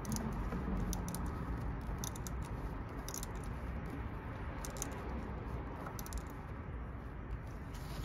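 Faint, irregular light clicks and rattles of parts and a hand tool being handled in an engine bay, over a steady low hiss.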